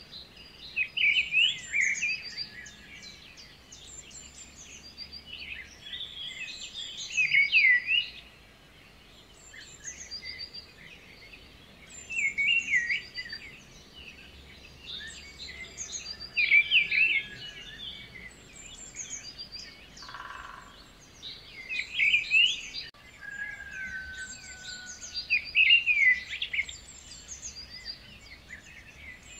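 Birds singing and chirping: louder bursts of song come about every four to five seconds over a continuous high twittering.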